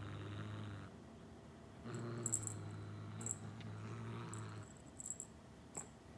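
Cat's low, steady rumble, a purr or growl, in long stretches with a pause of about a second between, plus a few faint light clicks.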